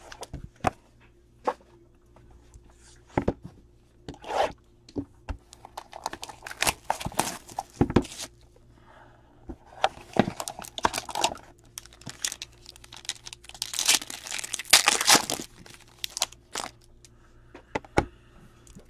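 Trading-card pack wrapper being torn open and crinkled by hand, in irregular crackling bursts mixed with sharp clicks and taps as cards and plastic card holders are handled. The longest bursts come about six to eight seconds in and again near fifteen seconds.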